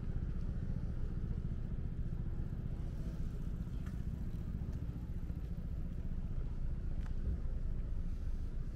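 Steady low rumble of outdoor ambience, with a couple of faint clicks about four and seven seconds in.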